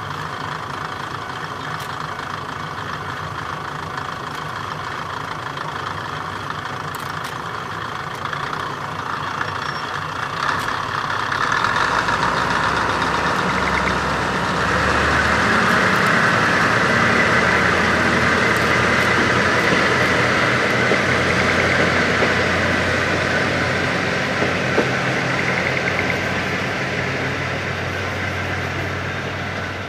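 Kominato Railway diesel railcar idling at the station. About ten seconds in, its engine runs harder as the train pulls away. The sound is loudest in the middle and eases off a little near the end.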